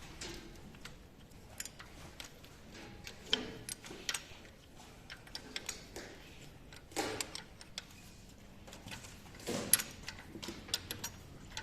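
Scattered metallic clicks and taps of hand tools working the accessory-drive belt tensioner on a Nissan VQ35DE engine, slackening the drive belt. A few louder knocks stand out.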